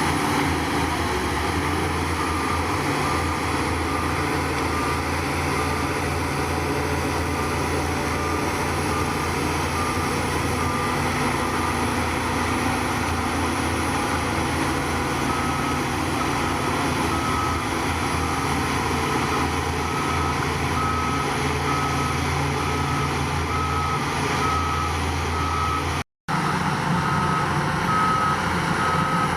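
Diesel engine of heavy earthmoving equipment running steadily, with a reversing alarm beeping in an even rhythm of a little under two beeps a second. The beeping is faint at first, pauses, and comes back louder about halfway through.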